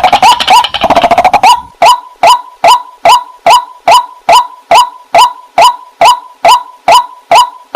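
White-breasted waterhen (the 'wak-wak' bird) calling loudly: a sharp call repeated evenly a little over twice a second, with a rapid jumbled run of notes over the first second and a half.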